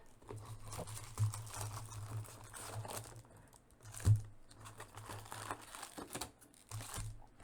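Trading card pack wrappers crinkling and tearing, with cards being handled in short rustles and clicks, over a low steady hum.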